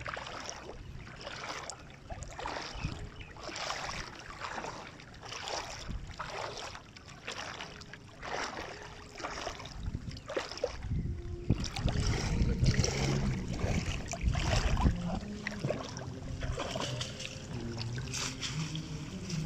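Shallow floodwater splashing and sloshing as a person wades through it and hauls a wet mesh net trap up out of the water, in a run of separate splashy strokes. About halfway through it turns louder and deeper as the net is lifted and worked at the water's surface.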